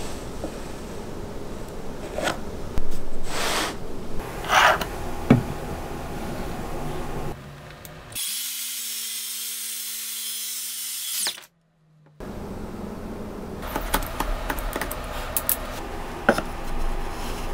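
Workshop sounds in short edited takes: wooden pieces scraping and knocking, and a Makita cordless circular saw running for about three seconds midway, a dense hiss over a steady motor hum.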